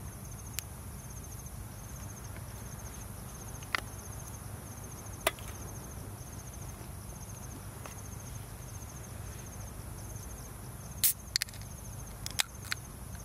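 Crickets chirping in a steady, evenly repeating rhythm over a continuous high insect buzz. A few sharp clicks break in, with the loudest cluster about eleven to twelve seconds in.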